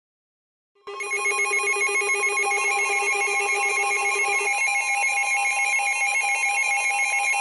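Emergency Alert System attention signal: a loud electronic alert tone starting about a second in, made of several tones warbling rapidly like a ringing phone. Its lowest tone drops out about halfway, leaving a steady higher tone under the warble.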